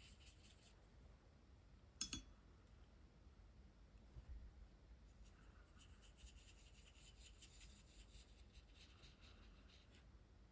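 Water-based brush marker (Spectrum Noir Tri-Colour Aqua) stroking across hot-press watercolour paper: faint, scratchy colouring strokes near the start and again through the second half. A single sharp click about two seconds in.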